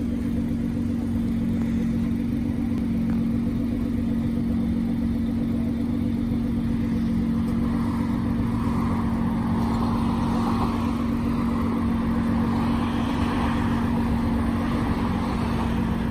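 Nissan GT-R R35's twin-turbo 3.8-litre V6 idling steadily, an even drone that holds the same pitch throughout.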